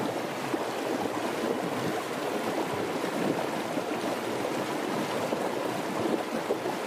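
Mutton curry with a litre of water boiling in the pot: a steady bubbling.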